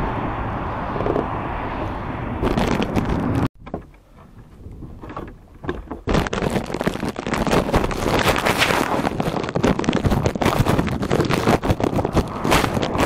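Wind rushing over the microphone while riding, cut off suddenly about three and a half seconds in; after a short lull, a plastic sandwich bag over the camera crinkles and rustles against it with dense crackling.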